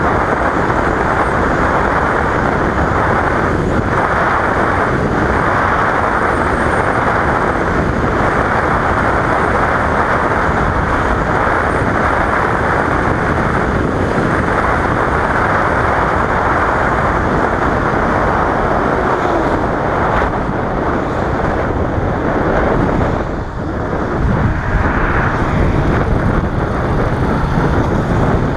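Steady wind rush on the microphone at road speed with a 2015 Yamaha FZ-07 motorcycle's parallel-twin engine running underneath. It goes briefly quieter about three-quarters of the way through.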